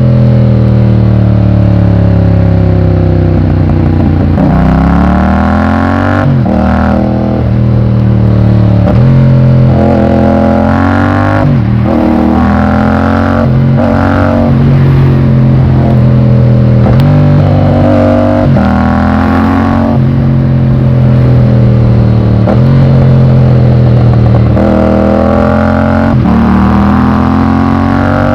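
Yamaha MT-07's parallel-twin engine heard onboard while riding, repeatedly revving up through the gears: the pitch climbs and then drops sharply at each shift, with steadier cruising stretches and some easing off between pulls.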